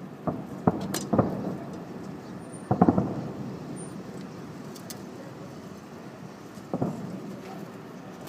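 Fireworks going off: several sharp bangs in the first second or so, a quick cluster of bangs about three seconds in, and another near the end, over a steady background noise.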